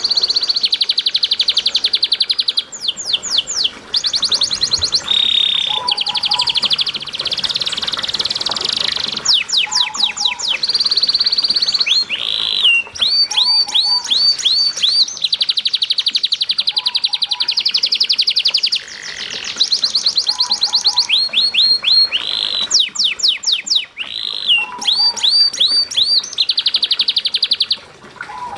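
Domestic canary singing a long, fast song: rolling trills and rapid runs of rising whistled notes, phrase after phrase with only brief breaks. It is a 'masteran' tutor song, played to prompt and teach other canaries to sing.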